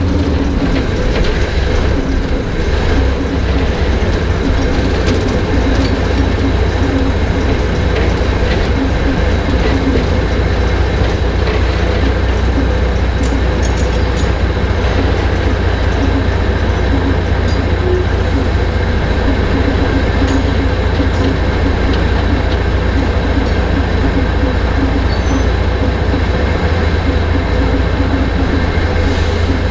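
Small Kö-class diesel shunting locomotive (Kö 5049) under way: its diesel engine gives a steady, loud low drone, heard close up from on the locomotive, with a few faint clicks partway through.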